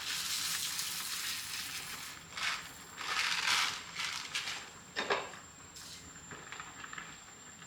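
Large pot of parboiling grains boiling over, the spilling water sizzling and hissing on the hot stove in uneven swells, with a sharp knock about five seconds in.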